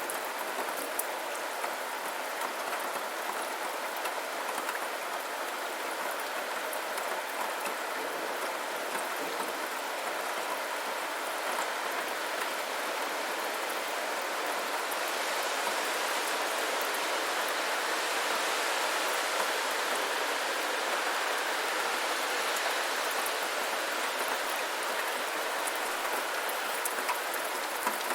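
Steady rainfall, a continuous hiss of falling rain with scattered drop ticks, growing slightly heavier about halfway through.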